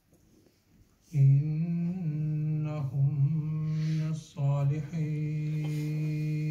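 A man's voice reciting Quranic verses in Arabic in a melodic, chanted style, with long drawn-out notes in three phrases. It begins about a second in after a short pause.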